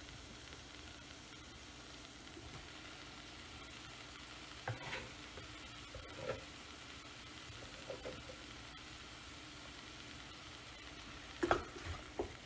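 Diced onions and green peppers sizzling faintly in a saucepan, with a few soft plops as diced tomatoes are dropped in, then a spoon stirring and scraping the pan near the end.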